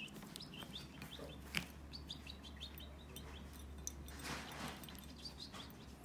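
Fischer's lovebirds chirping in quick runs of short, high twittering notes. There is a sharp tap about a second and a half in, and a brief rustle of noise around four seconds.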